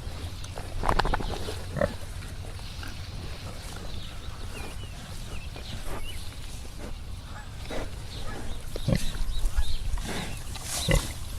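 Pigs grunting now and then, with louder grunts about a second in and again around nine and eleven seconds, over a steady low rumble.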